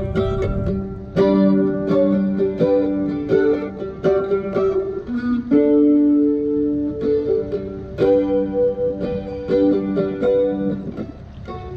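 Cigar box mandolin being played: a run of plucked notes and double-stops, with a longer held note about halfway through and a quieter passage near the end.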